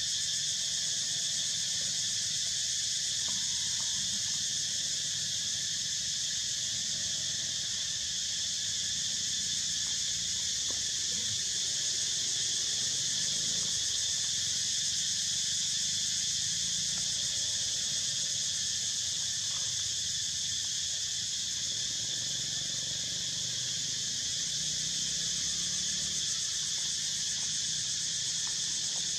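Steady high-pitched drone of a daytime insect chorus, unbroken and even throughout.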